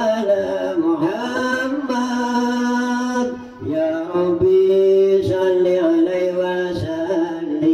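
A voice chanting in long, held notes that waver and slide between pitches. There is a brief drop in loudness about three and a half seconds in.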